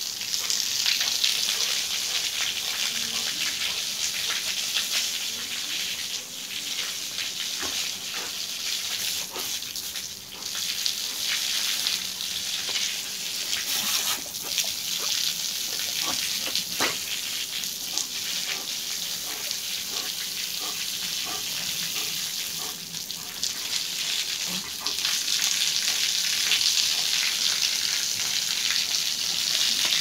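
A jet of water spraying with a steady hiss and pattering onto wet concrete and a German Shepherd snapping at it, with scattered small clicks and splashes. The hiss eases off a few times and is strongest near the end.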